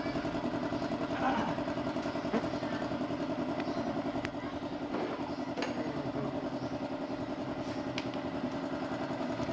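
Small motorcycle engine idling steadily with an even, rapid pulse, with a few light clicks over it.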